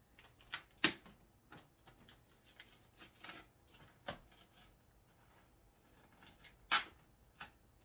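Cardboard beer advent calendar box being picked and torn open at its perforated door by hand: scattered scratching, tearing and tapping on the cardboard, with two sharper, louder snaps about a second in and near the end.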